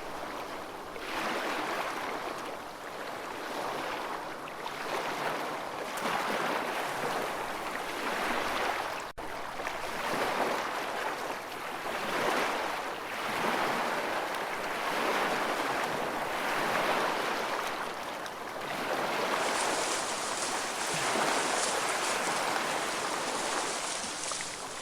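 Ocean water noise, surging and easing every second or two, with a brief dropout about nine seconds in.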